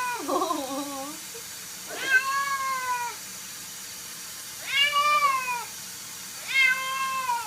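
A cat meowing: four long, drawn-out meows about two seconds apart, each sliding slightly down in pitch at the end.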